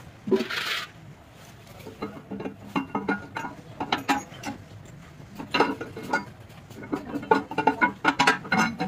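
Steel camshaft being slid and turned into the cam bearings of a bare cast-iron diesel bus engine block, its lobes and journals clinking and knocking against the bores in irregular clusters of clicks. A short hiss comes about half a second in.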